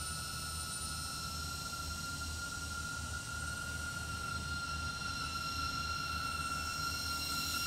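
DJI Avata cinewhoop's motors and ducted propellers whining steadily in slow flight, a little louder near the end.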